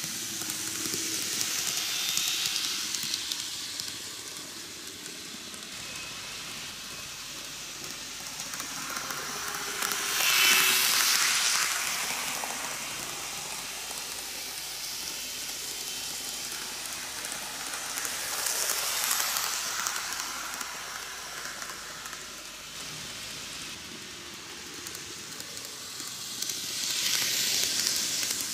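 N gauge model electric trains running on plastic track: a steady rattling hiss of wheels and motors that swells each time a train passes close, loudest about ten seconds in, with smaller swells near the start, in the middle and near the end.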